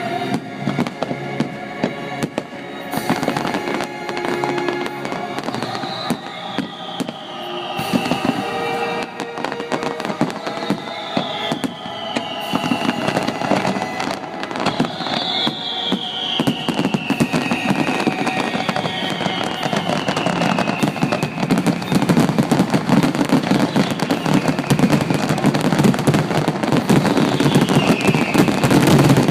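Fireworks display: dense crackling and shell bursts over show music, with several falling whistles, growing louder and denser toward the end.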